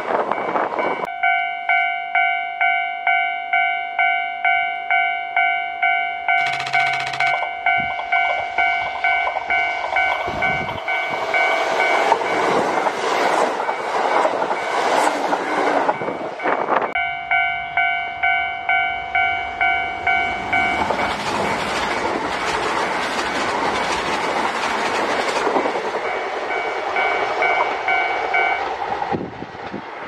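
Japanese level-crossing alarm ringing its steady electronic clang, about one and a half strokes a second, while Kintetsu Osaka Line trains roll past with wheel clatter and running noise.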